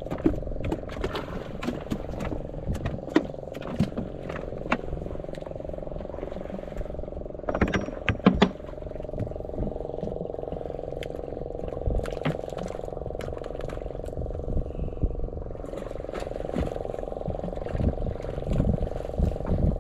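Knocks, clicks and thumps on a wooden fishing boat as a handline is hauled in and a barracuda is pulled up and swung aboard, loudest a little before the fish comes over the side. Under it runs a steady low hum.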